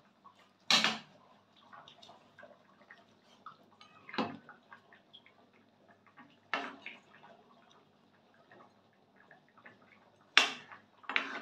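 Steel ladle stirring chicken curry in a metal kadai, knocking sharply against the pan four times, with a busier clatter near the end and faint wet stirring sounds between.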